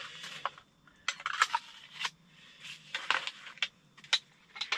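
Small, newly lit kindling fire crackling, with irregular sharp snaps and pops.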